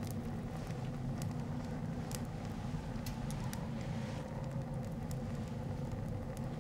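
Steady low rumbling background ambience with a few scattered faint clicks.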